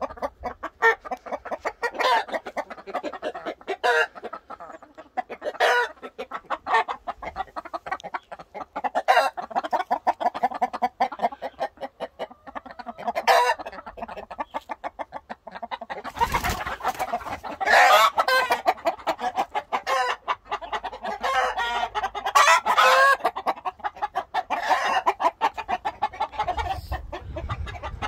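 A flock of chickens, hens and a rooster, clucking continuously as they feed on raw bass carcasses and guts, with many short sharp calls overlapping.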